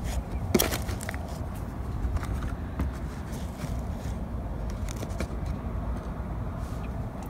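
Hands working a succulent cutting into potting soil in a thin plastic seedling cell tray: soft scattered rustles and plastic crackles, with one sharper click about half a second in, over a steady low rumble.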